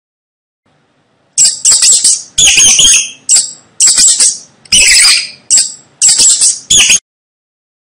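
A mouse squeaking: a rapid series of about ten short, high-pitched squeaks after a silent second and a half, stopping abruptly near the end.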